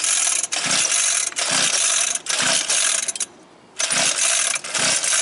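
Recoil pull-starter of a quarter-scale RC truck's small gas engine being yanked about six times in quick succession, with a short pause about three seconds in; the engine turns over but does not fire, which the owner puts down to flooding.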